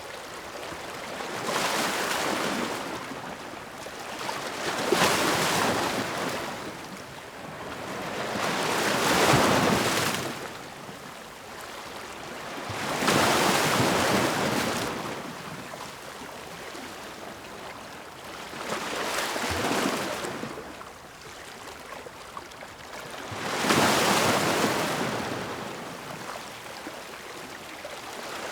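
Ocean waves breaking on the shore: six swells of surf, one every four to five seconds, each rising to a rushing peak and then washing back into a quieter hiss.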